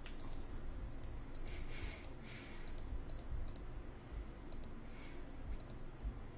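Faint light clicks at irregular spacing over quiet room noise.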